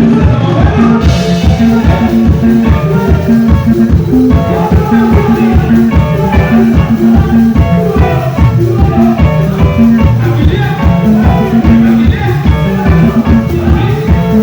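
Loud band music with a steady beat and a repeating bass line, played through a sound system during a sound check.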